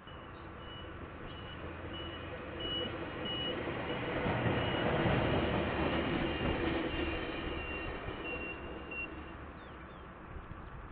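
A KiwiRail train passing by, its rumble building to a peak about halfway through and then fading. A high beep repeats about twice a second over it and stops near the end.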